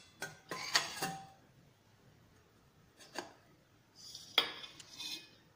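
Stainless-steel plate knocking and scraping against a steel bowl: a few short clinks shortly after the start, one ringing briefly, then a cluster of clinks and scrapes about four seconds in.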